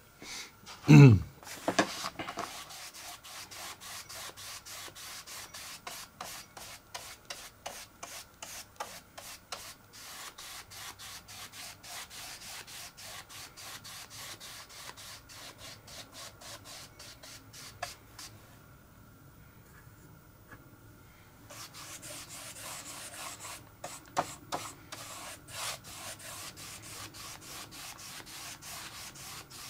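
A paintbrush stroked quickly back and forth over a model aircraft wing, laying on emulsion paint with light strokes, about three a second, pausing briefly about two-thirds of the way through. About a second in, a short loud scrape with a falling pitch stands out above the strokes.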